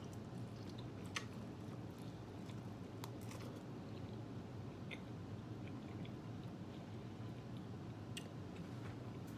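A person biting kernels off a boiled corn cob and chewing, with scattered sharp mouth clicks over a low steady hum.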